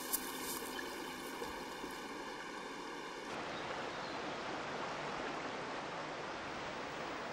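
Steady rushing of a swollen river: an even hiss of flowing water with no separate splashes standing out.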